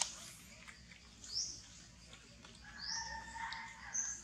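A bird calling: a short, high, upward-sweeping chirp repeated about every second and a half. A lower, steady whistled note lasts about a second in the middle.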